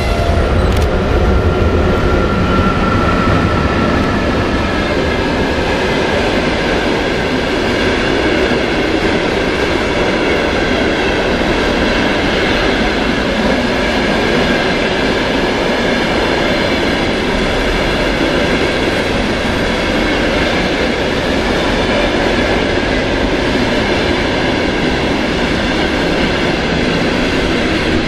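EP1M electric locomotive and its passenger coaches passing at speed close by, a steady loud rumble of wheels on rails that holds throughout.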